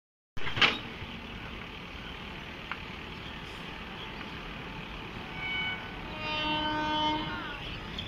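Electric locomotive horn sounding twice: a short blast about five seconds in, then a longer, louder blast whose pitch sags as it ends. A sharp knock comes just after the start, over steady background noise.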